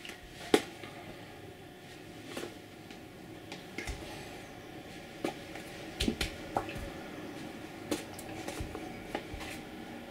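Scattered soft smacks and clicks from the hands of a person signing, as they strike together or against the body, over a faint steady hum. The sharpest and loudest comes about half a second in, and several more follow close together around six seconds.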